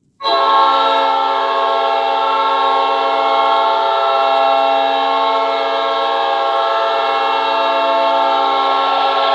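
Arena goal horn sounding one long, steady blast that starts abruptly, signalling a goal.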